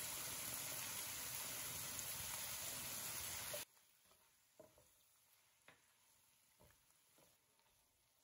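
Mixed vegetables sizzling as they fry in oil in a pan, a steady sizzle that cuts off suddenly about four seconds in. After that, only a few soft knocks of the spatula against the pan.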